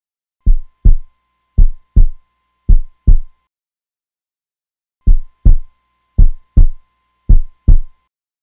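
Heartbeat sound effect: deep double thumps, three beats about a second apart, a pause, then three more, with a faint steady high tone under each run of beats.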